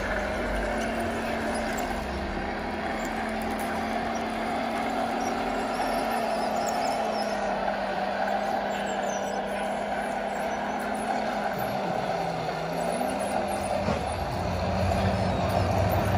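Radio-controlled scale model truck running, a steady motor hum whose pitch dips briefly about twelve seconds in, getting a little louder near the end.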